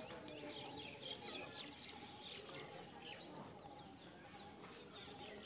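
Faint chorus of small birds chirping, many short overlapping high chirps throughout, over quiet outdoor background.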